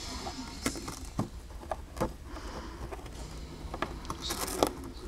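A cat chewing on the edge of a cardboard box: irregular crunching bites and scraping of the cardboard, with a short rasping scrape about four and a half seconds in.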